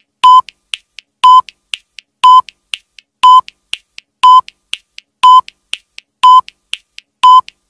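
Countdown timer sound effect: a short, high electronic beep once every second, with a fainter tick halfway between each beep, marking off the seconds as the timer runs down.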